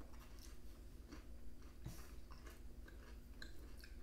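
Faint chewing of a soft cookie: scattered small wet clicks and smacks from the mouth, no more than a few a second.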